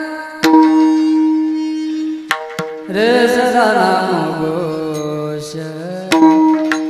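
Varkari bhajan music: a steady drone with a few sharp drum or cymbal strokes. About halfway in, a singer comes in on a long, wavering held note.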